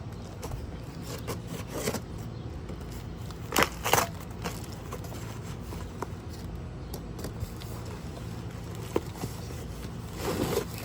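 Boxes being unpacked: cardboard packaging and steel fire pit parts handled, with scattered rustles and knocks, the loudest a pair about four seconds in, over a steady low hum.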